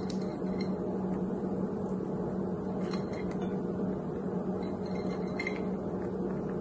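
Steady low hum of room background noise, with a few faint light clicks as dried cranberries are picked from a glass container and scattered by hand onto a salad.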